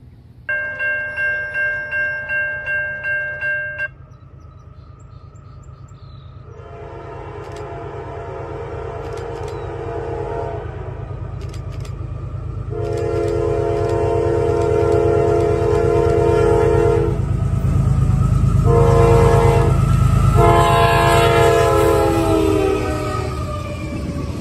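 Approaching CSX freight locomotive's multi-note air horn sounding the grade-crossing signal of long, long, short, long, over a growing rumble of the train; the horn chord drops in pitch as the locomotive reaches the crossing. It is preceded by about three seconds of a pulsing, bell-like ring.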